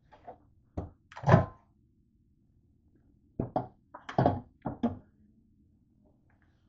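Microwave door thunking open and a plastic container knocking inside as it is lifted out: a series of short thunks and knocks, the loudest about a second in and a quicker cluster of them after about three and a half seconds.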